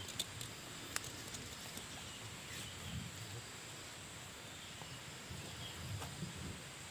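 Quiet outdoor ambience with a steady high insect drone, and a few sharp clicks of dry leaf litter being disturbed in the first second or so.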